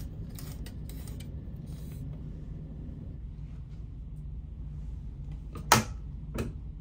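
Steady low hum of the ferry's engines and ventilation, with light clicks and rustles near the start as the round ceiling air vent is turned. Near the end come two sharp knocks, the first the louder, as the wooden overhead life-jacket cupboard door is opened.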